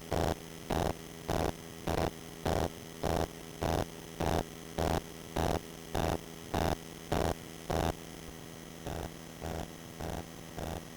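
Hot air rework gun running during desoldering: a steady electrical hum with a buzz that pulses about twice a second, strong for the first eight seconds, then weaker and a little quicker.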